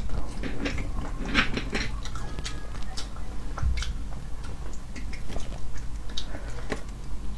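Sea snail shells clicking and tapping as the snails are handled and their meat is picked out with a toothpick, with wet chewing between: a scatter of small irregular clicks.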